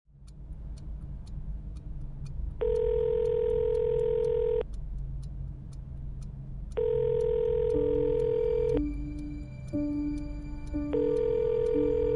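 Telephone ringback tone heard through a phone: a steady tone lasting about two seconds, three times, with about two seconds of gap between them. The call is ringing and has not yet been answered. Underneath runs soft background music with a faint ticking pulse, and gentle repeated notes come in during the second half.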